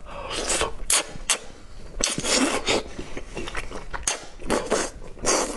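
Close-miked mouth sounds of eating sauce-glazed braised pork belly (bazi rou): wet chewing, slurping and lip-smacking in an irregular run of short smacks.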